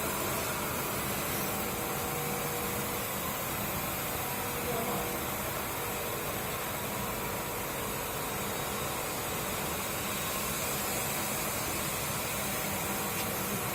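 Cable extrusion production line running steadily: an even machinery noise with faint constant whines.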